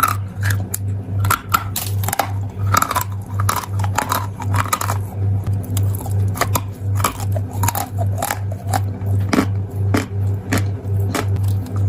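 Close-up crunching and biting of hard chalk and dried clay: many sharp, crisp snaps and crumbling crunches in quick, uneven succession. A steady low hum pulses underneath about three times a second.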